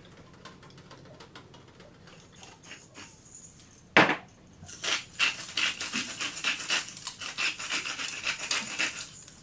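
A hand-twisted glass spice grinder being worked over a foil pan: a fast run of gritty grinding clicks, about four or five a second, lasting several seconds. It follows a single sharp knock on the counter about four seconds in.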